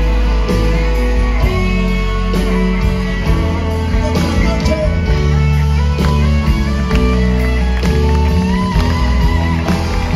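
Live rock band playing an instrumental passage: electric guitars over bass, drums and keyboards, with a steady beat, recorded from the audience.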